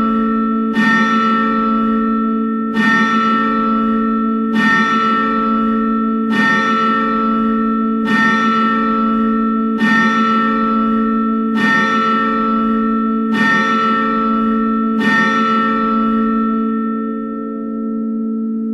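A peal of church bells ringing together in plenum, the full ring of ten, struck at an even beat of about one stroke every two seconds, nine strokes in all. After the last stroke, about 15 seconds in, the bells are left humming and fading away.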